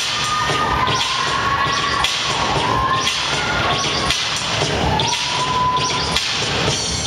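Dance music with a heavy beat, about two beats a second, and a held, sliding melody line on top, played over a theatre's sound system.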